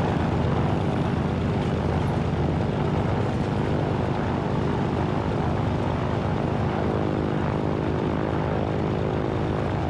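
Propeller aircraft's piston engine running steadily with a constant drone.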